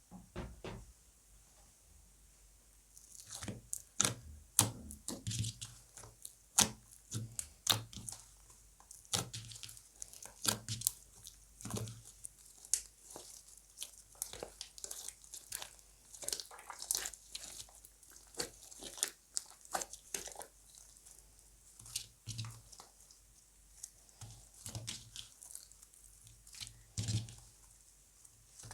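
Slime being squished, stretched and mixed by hand: a dense, irregular run of crackles and snaps that starts about three seconds in.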